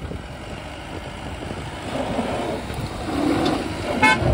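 Mahindra Bolero diesel engines running during a strap tow between two Boleros, the engine noise growing louder over the few seconds.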